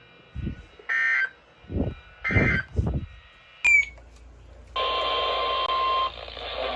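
Emergency Alert System end-of-message data bursts from a NOAA Weather Radio broadcast: two short, harsh two-tone digital bursts about a second apart, with low muffled sounds between them. A sharp click follows at about 3.7 s, and from about 5 s a steady hiss of radio static.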